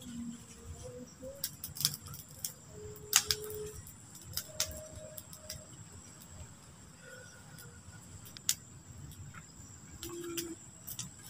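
Wood campfire crackling, with irregular sharp pops, over a steady high-pitched trill of night insects.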